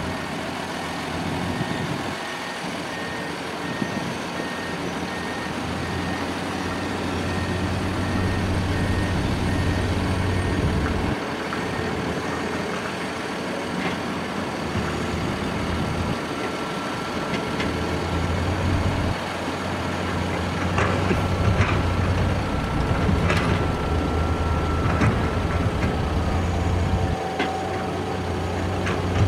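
Heavy diesel truck engine running, its low rumble rising and falling, with a reversing alarm beeping in rapid, even beeps for the first several seconds.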